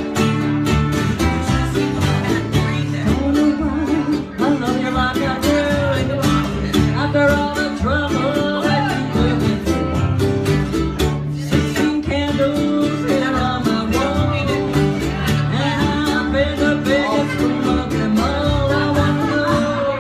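Music: a guitar-led band with a steady beat, and a singing voice that comes in about three seconds in.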